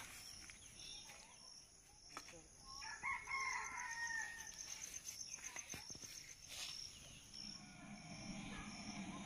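A rooster crows once, faintly, about three seconds in.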